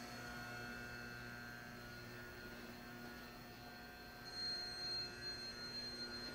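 Steady electrical hum and a thin high whine from a stationary Shinano Railway SR1 series electric train, the whine and overall level rising from about four seconds in.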